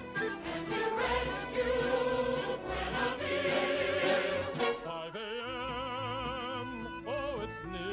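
Choir singing with orchestra. About five seconds in the full chorus thins out, leaving a single line with wide vibrato over a held low note.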